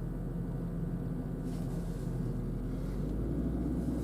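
Jaguar car's engine running with a steady low hum.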